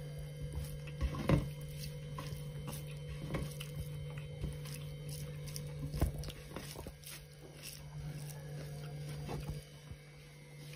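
Fingers mixing rice and pork curry on a metal plate: soft, scattered taps and scrapes against the metal, over a steady low electrical hum.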